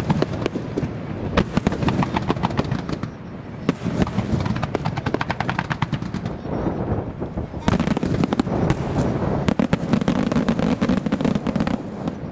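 Fireworks barrage: a dense run of rapid sharp bangs and crackles, easing briefly about three seconds in, then building again into a thicker volley for the second half.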